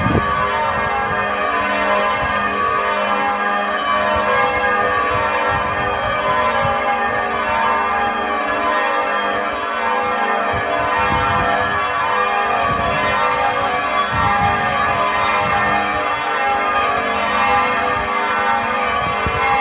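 Church bells pealing continuously, many bell tones ringing over one another without a break.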